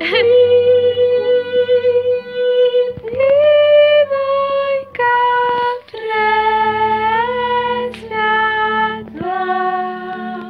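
A woman singing for fun at home, holding long notes that step and slide between pitches, over a steady low tone underneath.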